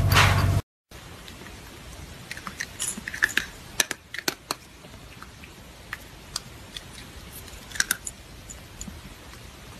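A loud hum cuts off under a second in. After it come scattered light clicks and ticks of dry cat kibble in a small ceramic bowl as a hand picks through the pellets. The clicks are thickest about three to four seconds in and again near the end.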